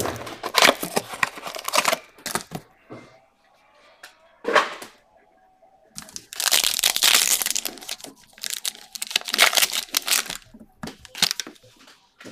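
Foil wrapper of a trading-card pack crinkling and being torn open by hand. The crackling comes in several bursts with short quiet pauses between.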